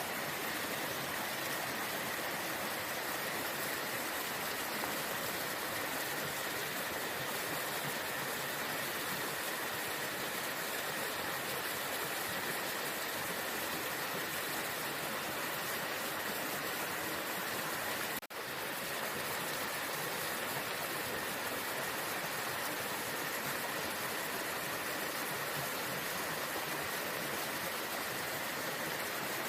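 Waterfall: a steady, unbroken rush of falling water, dropping out for a split second about eighteen seconds in.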